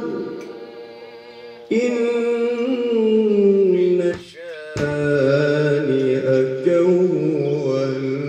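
A male qari reciting the Quran in melodic tilawah style into a microphone, with long held, ornamented notes. A new phrase starts about two seconds in on a long note that slowly falls. After a short breath near the middle, another phrase begins lower.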